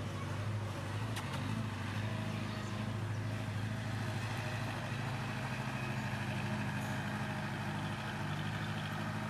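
Engine running steadily, a low even hum.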